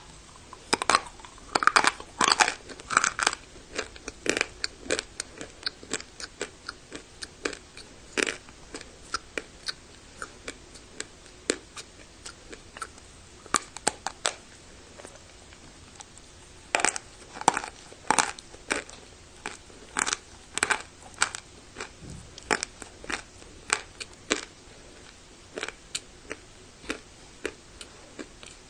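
A person biting and chewing hard, dry baked clay (turbah), close up. Sharp crunches come in quick clusters, then as single bites a second or so apart.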